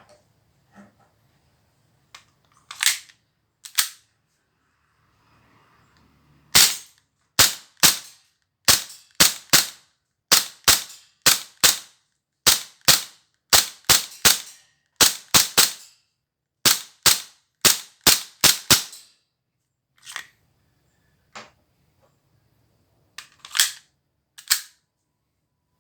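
Tokyo Marui USP9 Custom gas blowback airsoft pistol firing: sharp cracks of each shot, a few spaced single shots, then a quick string of about two dozen in a row, then a few more spaced shots near the end.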